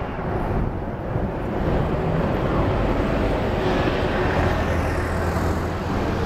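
Jet engines of a Boeing 737-800 at high thrust on its takeoff roll, a loud steady roar that grows a little louder after about a second and a half and gains a higher hiss later on.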